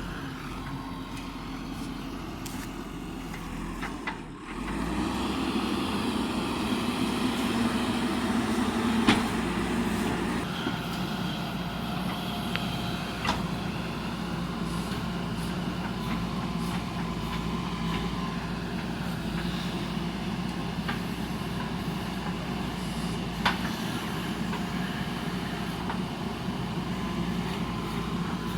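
JCB backhoe loader's diesel engine running steadily under load while it digs, with a few sharp knocks, about three over the span.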